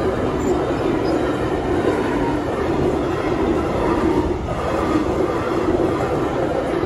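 Freight train wagons rolling past at speed, a steady loud rumble with the clatter of wheels running over the rails.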